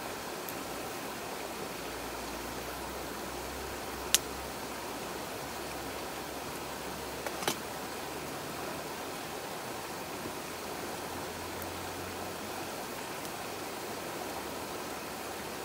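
Steady rush of a rocky mountain stream with a wood campfire burning. Two sharp pops crackle from the burning logs, the louder one about four seconds in and a second about halfway through.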